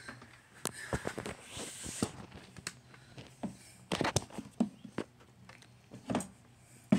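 Irregular handling noise: scattered knocks, taps and rustles as things on a desk are handled and the handheld camera is jostled, with the loudest knocks about four seconds in, about six seconds in and at the end.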